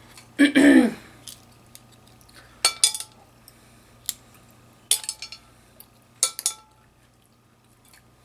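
Sharp clinks and clicks of cutlery and crab shell against a plate, coming in small clusters a second or two apart, some with a brief metallic ring.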